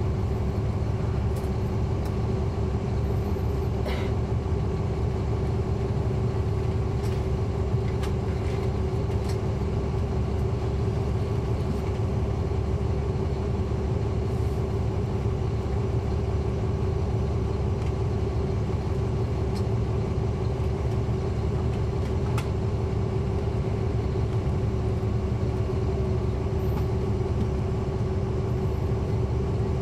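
Caterpillar C13 ACERT diesel engine of a NABI 40-foot transit bus running steadily with a low rumble and a constant drone, heard from inside the cabin near the back. A few faint ticks of cabin rattle sound now and then.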